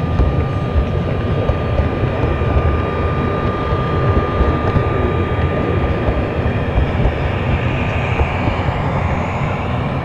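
Gauge 0 model freight train rolling along the track, heard from aboard a wagon: a steady, close rumble of wheels on rails. A thin steady whine runs under it and fades about six seconds in, and a rising whine comes up near the end.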